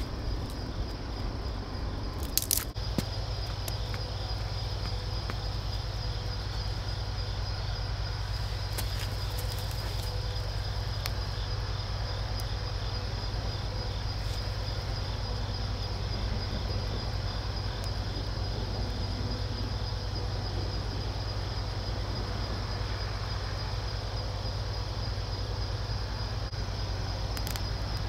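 Insects chirping steadily, a pulsing high trill that holds through, over a low steady rumble. A few sharp clicks come about two and a half seconds in and again around nine to ten seconds.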